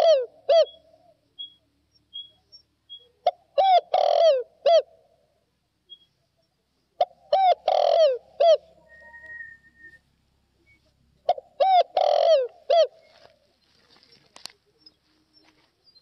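Spotted dove cooing its song. Three full phrases come about four seconds apart, plus the tail of another at the start. Each phrase is a run of short rising-and-falling coos.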